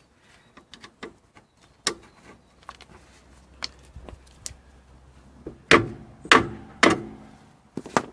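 Metal hand tools clicking and knocking on car suspension parts during a coilover fit, then three loud ringing metal clanks about half a second apart near the end, followed by a sharp click.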